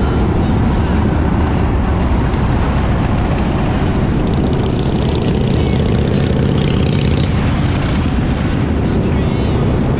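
Steady engine and road noise from vehicles, with background music mixed in.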